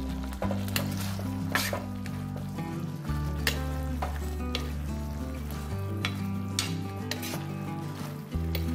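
A metal spoon stirring raw chicken pieces in wet tom yum paste in a glazed clay pot: wet mixing noise with irregular clinks and scrapes of the spoon against the pot, over background music with low sustained notes.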